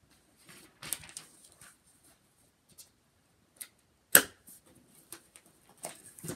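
Paper and plastic dividers rustling and being handled in a zip-up three-ring binder, with scattered clicks. A single sharp click about four seconds in, the loudest sound, as the metal binder rings are snapped.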